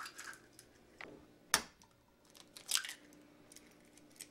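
Eggs being cracked into a stainless steel bowl: one sharp crack of eggshell about a second and a half in, with a few softer shell clicks and crackles around it.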